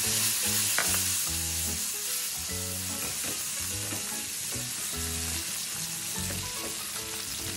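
Gravy sizzling and bubbling in a skillet as a butter-and-flour roux, with meat pan juices and broth just poured in, is stirred with a silicone spatula. The sizzle is a steady hiss.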